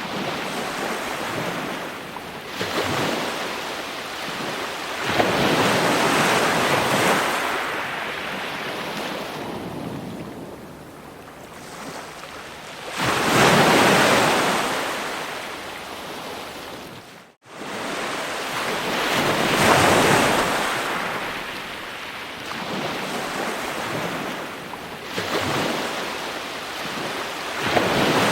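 Ocean waves breaking on a shore, a rushing wash that swells and recedes every five to seven seconds. The sound cuts out for an instant about two-thirds of the way through.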